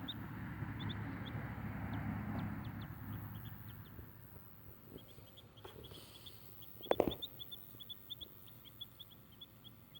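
Muscovy duckling peeping: quick runs of short, high chirps, several a second, stopping and starting again. This is the lonely distress peeping of a young duckling. A low rustling runs through the first few seconds, and there is a single knock about seven seconds in.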